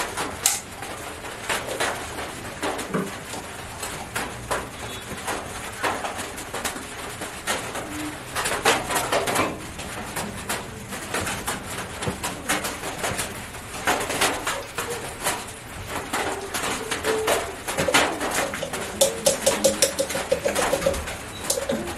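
A chicken making soft, low cooing calls, with a run of short repeated notes near the end. Throughout there are clicks and knocks of a plastic blender jug and a strainer being handled as liquid medicine is poured.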